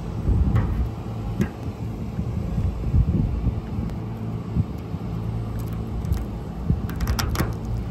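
Steady low hum of a running air-conditioning unit, with a few light metal clicks: one about half a second in, one at about a second and a half, and a quick cluster near the end.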